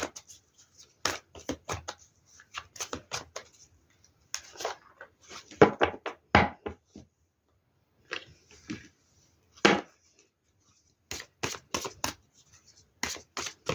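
Tarot cards being handled: shuffled, drawn and laid on a table in a series of irregular short snaps and rustles with pauses between.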